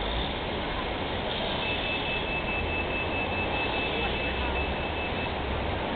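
Steady background rumble and hiss like distant traffic, with a faint high-pitched pulsed beep that starts about a second and a half in and stops about five seconds in.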